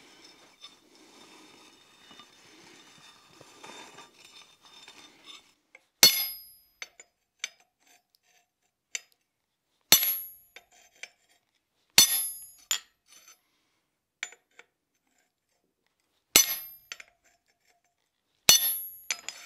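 Hammer striking a wooden-handled chisel to set a groove line in a cold steel bar on the anvil: five sharp metallic blows a couple of seconds apart, each ringing briefly, with lighter taps and clinks between them. Before the blows, for the first few seconds, a pencil faintly scratches as it marks the line on the steel.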